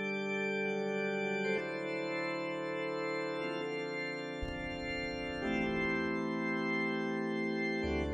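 Organ music: slow, sustained chords that change every second or two, with a deep bass note coming in near the end.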